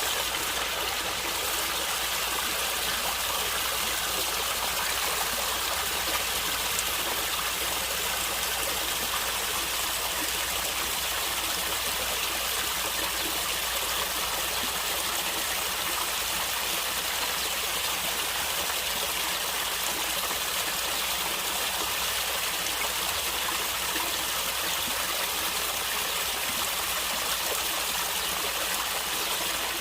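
Water flowing and gurgling in a stream, with a steady rushing sound that does not change.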